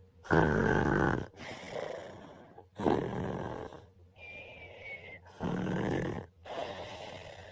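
A man snoring in his sleep: three loud snoring inhales about two and a half seconds apart, each followed by a softer, longer exhale, one of them with a faint whistle.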